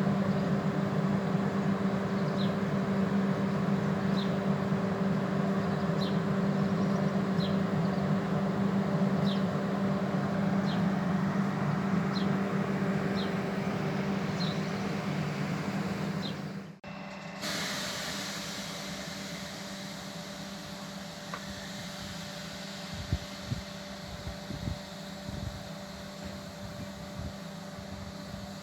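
Train at a rural station running with a steady low hum, a faint high tick repeating about every second and a half. About seventeen seconds in it cuts off abruptly to a quieter, steady background hum with a few low thumps.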